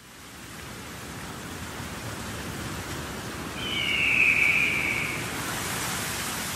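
Steady hiss of noise, like wind or rain, fading in at the start, with one high tone about halfway through that slides slightly downward and fades: the atmospheric intro of a pop song, before the music proper comes in.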